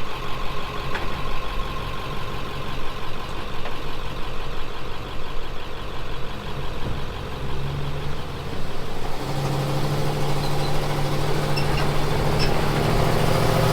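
A vehicle engine running steadily at idle, growing louder about nine seconds in.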